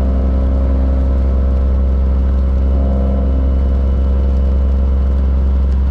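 Cummins ISM diesel engine of a 2000 Freightliner FLD 112 single-axle semi running steadily at highway cruising speed, heard inside the cab as a constant deep drone with road noise.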